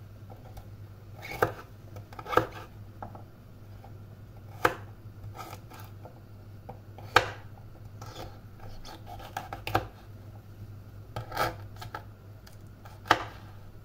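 Kitchen knife cutting through firm kenger (Gundelia) stems and knocking on a wooden cutting board: sharp chops at irregular intervals, a second or two apart, between softer scraping cuts. A low steady hum runs underneath.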